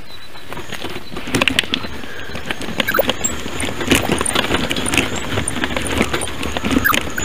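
Bicycle rattling and clattering over a rough trail: a steady rushing noise with a dense stream of irregular clicks and jangles, getting busier about a second in.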